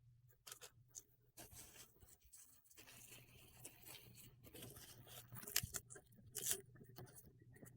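Faint handling noises: plastic parts and packaging rustling, with scattered light clicks and knocks.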